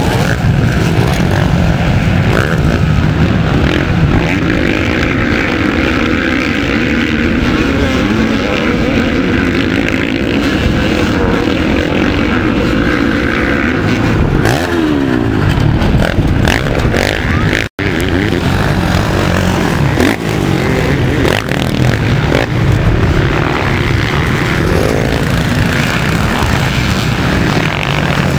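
A pack of motocross motorcycles racing past, engines running hard, with rising and falling pitch as riders rev and shift. The sound drops out for an instant a little past halfway.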